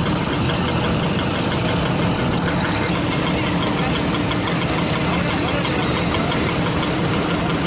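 Motorcycle engine running steadily, with a steady rushing noise over it.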